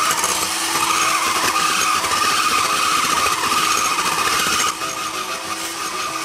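Electric hand mixer running steadily, its beaters whirring through whipped egg whites as the egg yolks are beaten in; it gets a little quieter about four and a half seconds in.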